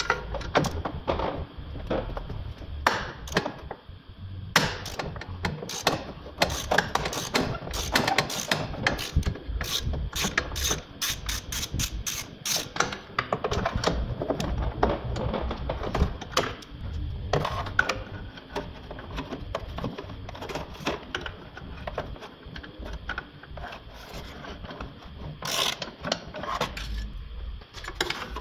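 Hand ratchet wrench clicking in runs as the E-Torx bolts holding the exhaust pipe to the manifold are worked loose, with the fastest, densest clicking a third of the way in.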